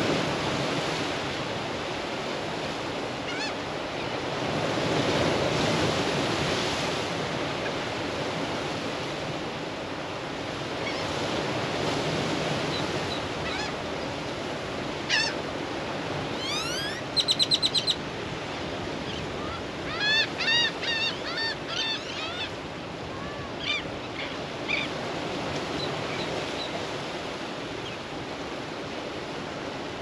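Ocean waves washing steadily onto a rocky shore. From about halfway through, birds call over it: a quick run of sweeping notes, then a series of short calls and a few single ones.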